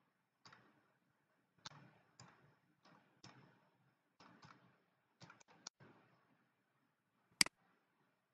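Computer keyboard keys pressed one at a time in an uneven rhythm, about a dozen clicks over six seconds as digits are typed, then a single louder, sharper click about seven seconds in.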